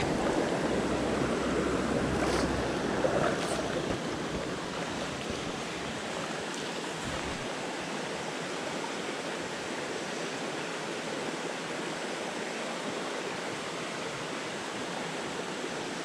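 Shallow mountain stream running over rocks: a steady rush of moving water, a little louder for the first few seconds, then settling to an even level.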